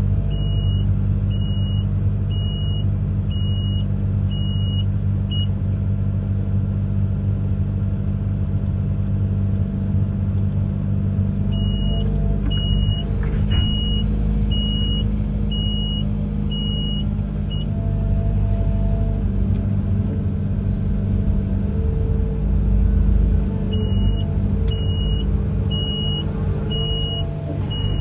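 Amphibious excavator's engine running steadily under load, with its travel alarm beeping a little faster than once a second in three spells of about six seconds each: the machine is moving.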